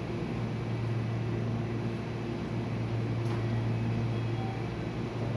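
Steady low hum of a JR West 223-series electric train standing at the platform, its onboard equipment running, under a general station-platform noise.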